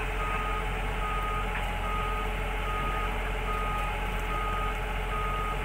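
Hyundai 210W wheel excavator's travel alarm beeping steadily, about one beep every 0.8 seconds, while the machine moves. Its diesel engine runs steadily underneath.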